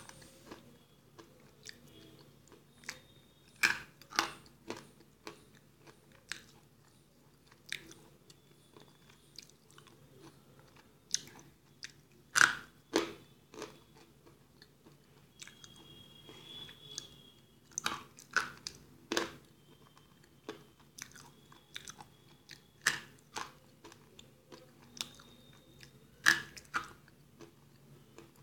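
Eagle-brand slate pencils being bitten and chewed: sharp, irregular crunches, with a few loud snaps among softer crunching.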